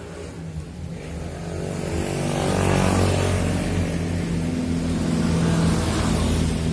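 A motor vehicle engine running close by, growing louder over the first few seconds and then holding steady.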